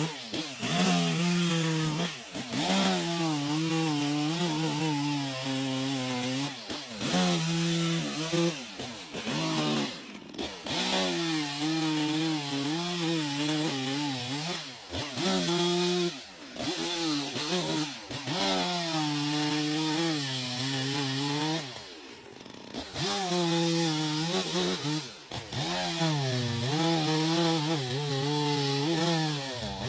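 Two-stroke chainsaw cutting into wood, its engine pitch rising and falling as the throttle is worked. It drops back briefly several times, with a longer lull a little past two-thirds of the way through.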